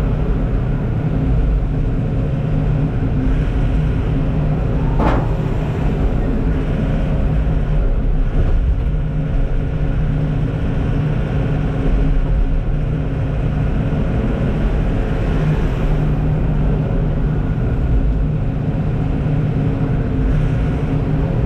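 Heavy dump truck's diesel engine running steadily under load, heard from inside the cab, with one short sharp sound about five seconds in.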